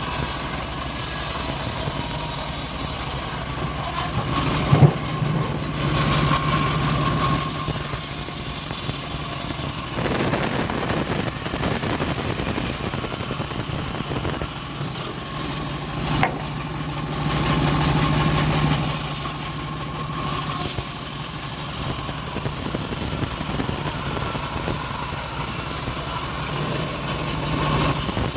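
Homemade bandsaw mill running steadily on its engine while it saws teak. The drone swells and eases in stretches, and there is a sharp knock about 5 seconds in and another near 16 seconds.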